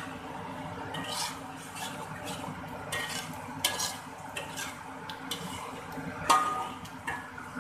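Metal slotted spatula stirring and scraping thick chilli paste around a metal wok, with irregular scrapes and clinks against the pan, the loudest clink about six seconds in. Under it, a low steady sizzle of the sambal paste cooking.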